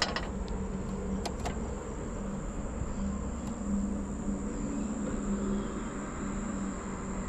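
Outdoor ambience: insects droning steadily at a high pitch over a low rumble and hum, with two light clicks about a second and a half in.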